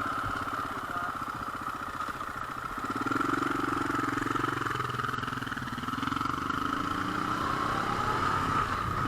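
Motorcycle engine running, picking up in pitch and loudness about three seconds in and again a couple of seconds later as it accelerates.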